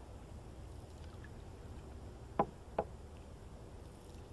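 Two sharp knocks about half a second apart, a wooden canoe paddle striking the aluminium canoe's hull, over a low steady rumble.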